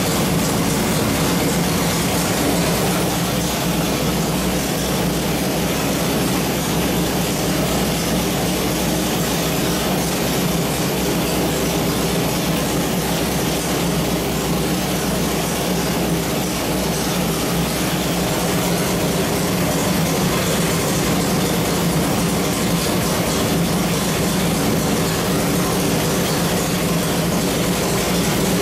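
A 383 cubic-inch small-block Chevrolet V8 stroker on an engine dyno, running steadily at one speed with no revving.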